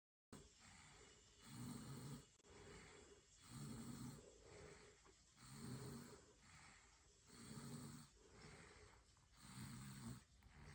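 A 14-month-old toddler snoring faintly in her sleep, one short snore about every two seconds with softer breathing between.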